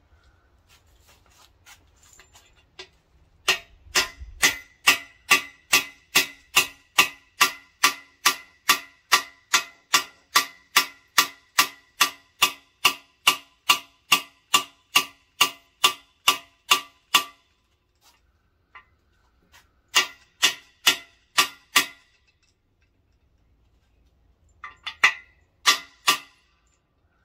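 Hammer tapping a metal driver to seat a brass freeze plug into a Mopar 318 block's core hole: a long steady run of ringing metal taps, about two and a half a second, then a short second run and a few more taps near the end. The taps are kept slow and even so the plug goes in straight and not too deep.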